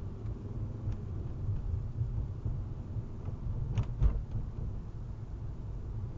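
Low rumble of a car's engine and tyres heard inside the cabin as the car pulls away and speeds up from walking pace, with two sharp knocks close together about four seconds in.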